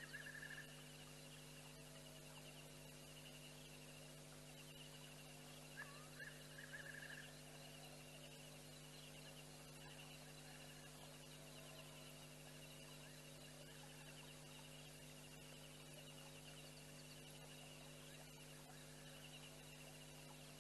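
Quiet night bush ambience: a steady electrical hum with insects trilling in a fast, pulsing rhythm. Two short higher calls rise and then hold briefly, one right at the start and one about six seconds in. The lion is silent.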